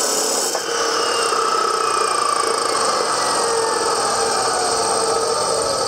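DeWalt D28710 14-inch abrasive chop saw. The grinding of its wheel through steel square tubing stops about half a second in. The motor and wheel then coast down, their whine falling steadily in pitch.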